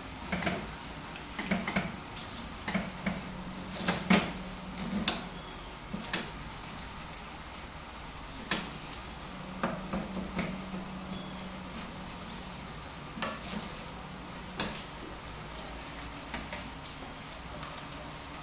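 Ground beef frying in a pan, stirred with a spoon: irregular clicks and scrapes of the spoon against the pan over a steady sizzle.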